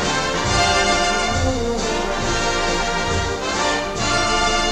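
Orchestral music with prominent brass, full and sustained.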